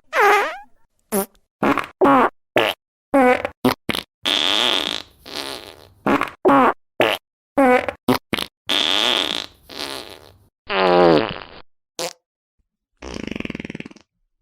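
A rapid run of fart sound effects, one after another with brief silent gaps: some short squeaky blasts sliding in pitch, some longer drawn-out ones lasting about a second, and a low buzzing one near the end.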